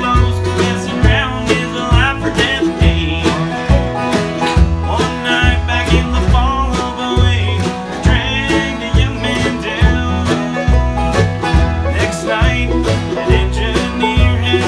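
Country or bluegrass-style music with quick plucked string notes over a steady, pulsing bass beat.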